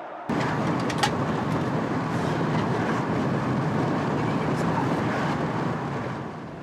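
Steady vehicle running noise, a low hum under an even rumble and hiss, heard from inside a car, with one sharp click about a second in.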